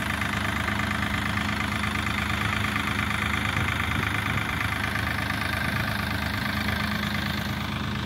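Farm tractor's diesel engine running steadily, towing a trolley loaded with soil.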